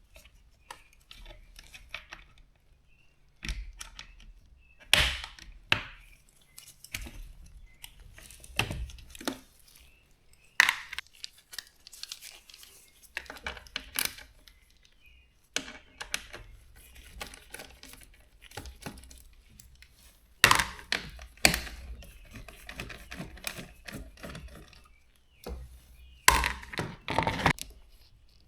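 Irregular clunks, knocks and clicks of hands and tools working on a dishwasher's pump and motor assembly, coming every second or two with short pauses between.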